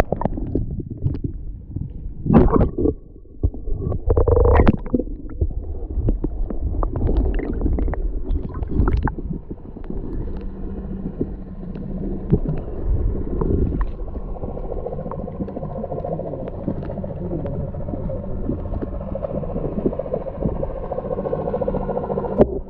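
Underwater sound picked up by a camera held beneath the surface: muffled rumbling and gurgling water with scattered clicks, heavier bursts of water movement a few seconds in.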